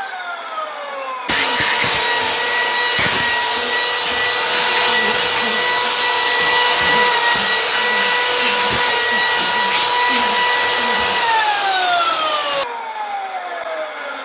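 Chainsaw running under load as it cuts through a bowl of pudding, starting abruptly about a second in and cutting off suddenly near the end, with a few knocks along the way. A steady whine runs underneath and drops in pitch near the end.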